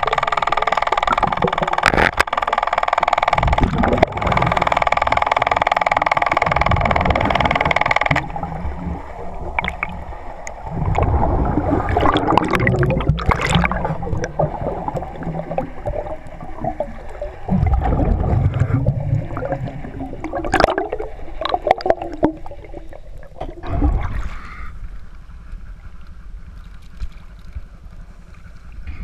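Water gurgling and rushing past an underwater camera, with low irregular rumbling surges and bubbling. A steady whining drone runs for the first eight seconds and then stops.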